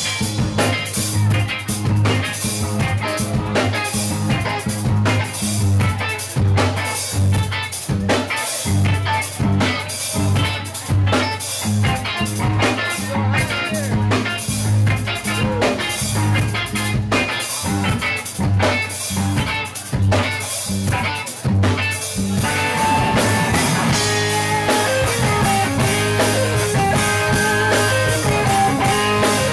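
Live rock band playing an instrumental jam on electric guitars and drum kit, with no singing. A little over twenty seconds in, the drum strikes thin out and longer held notes come to the fore.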